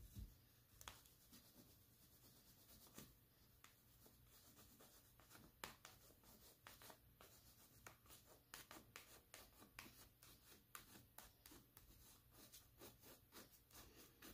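Faint scratching of an oil pastel stick rubbed across paper in short strokes, which come faster in the second half.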